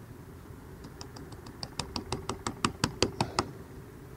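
Rapid run of sharp clicks, about six a second, growing louder and then stopping, from a match-fishing pole being handled and shipped out to feed pellets from its pole cup.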